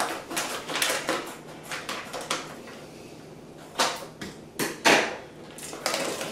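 Plastic tortellini package crinkling as it is cut open and handled, with three sharp clacks about four to five seconds in.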